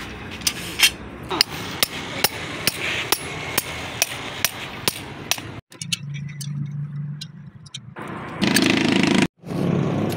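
Steel hand tools knocking and clinking on a Hino truck differential's ring gear and carrier during reassembly: a run of sharp metal knocks about twice a second. After a cut there is a quieter stretch with a low steady hum and a few clicks, then a short, louder noisy burst.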